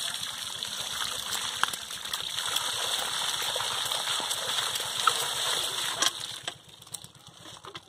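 A steady stream of water gushing down onto muddy fish in a mesh sieve, washing the mud off the catch. The flow stops about six seconds in.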